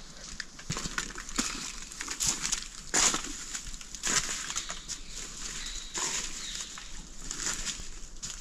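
Footsteps crunching through dry fallen leaves and twigs on a forest path: an irregular crackle of steps, with two louder crunches about three and four seconds in.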